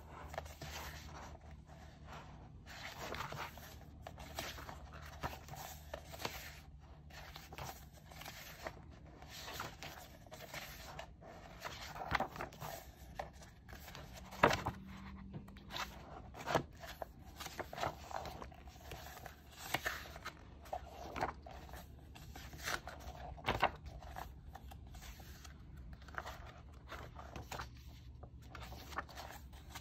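Pages of a photo book being turned and handled by hand: paper rustling and sliding, with several sharper snaps as pages flip over.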